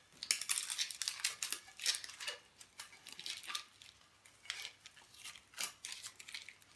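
Surface finishing tape being peeled off a cured resin-and-carbon-cloth wrap on a fishing pole section, giving an irregular run of crackles as it comes away. The crackling is the tape cracking off the hardened glossy resin surface, not stickiness.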